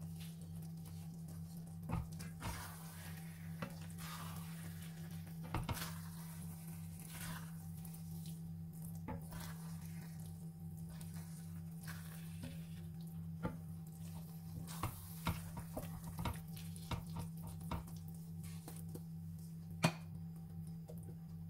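Wooden spoon stirring risotto in an enamelled pan: brief swishes of the spoon through the rice and scattered knocks of the spoon against the pan, the sharpest near the end, over a steady low hum.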